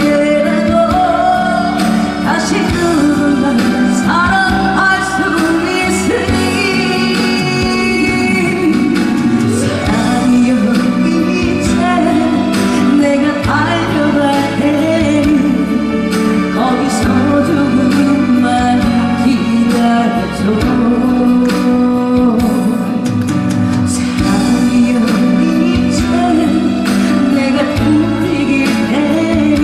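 A woman singing a song over an instrumental backing track with a steady beat.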